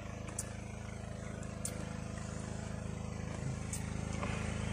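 An engine running steadily, a pitched hum that grows slowly louder, with a few faint sharp clicks.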